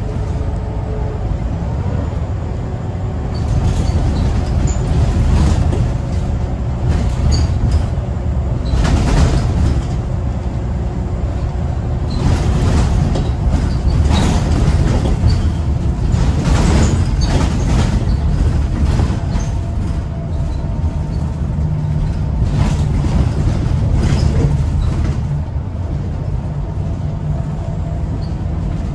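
Inside a Scania L94UB/Wright Solar single-deck bus on the move: a steady low engine and drivetrain rumble with road noise, swelling and easing several times as the bus pulls along, with the faint whine of its ZF automatic gearbox. Frequent short rattles and knocks come from the body and fittings over bumps.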